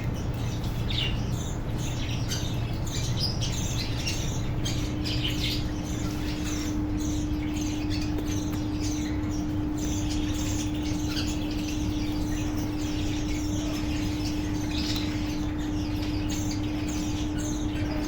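A colony of budgies and cockatiels chirping and squawking, with many short overlapping calls, over a steady low hum.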